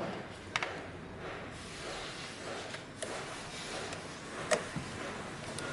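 A few sharp clicks and knocks of parts and tools being handled during engine-bay work, over a steady background hiss.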